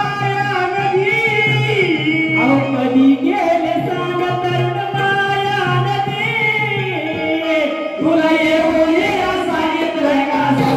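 Marathi folk singing of a Shakti-style kalapathak troupe with instrumental accompaniment, sung in long, wavering phrases over a steady low drone.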